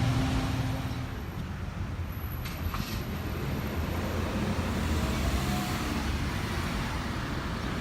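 Road traffic in a narrow street: motor vehicles passing, a steady low engine and tyre rumble.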